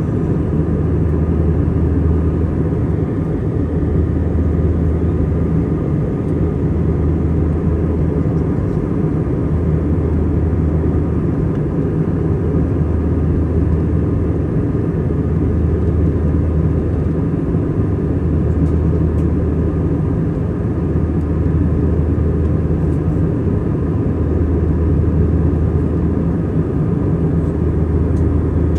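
Airbus A320-200 cabin noise in flight: a steady jet-engine drone and airflow rush, with a deep hum that swells and fades every few seconds.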